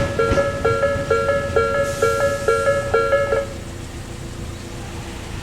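Japanese railway level-crossing warning bells of the Nikko type, two alarms ringing together with the far one pitched slightly lower, pulsing about three times a second. They cut off suddenly about three and a half seconds in, as the crossing clears after the train has passed.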